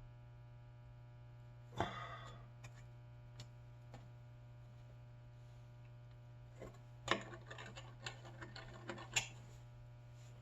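Small metal parts and hand tools being handled on a workbench: a sharp knock and short scrape about two seconds in, a few light ticks, then a run of clicks and light clatter near the end, over a steady electrical hum.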